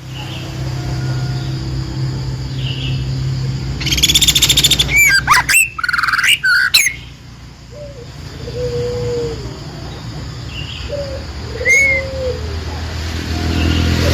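Songbird chirping: a burst of rapid, loud sweeping chirps about four seconds in, then soft low whistled notes and a single chirp near the end, over a steady low hum.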